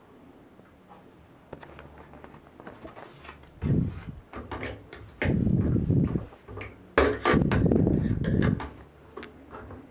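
A sheet of photographic paper being slid into a plastic darkroom developing tray and the solution agitated, heard as three bursts of sloshing and scraping, the longest near the end, with light knocks of the tray and tongs.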